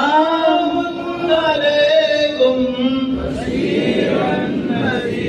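A man's voice chanting through a microphone in long, held, wavering notes. From about three seconds in, the sound thickens into several men's voices chanting together.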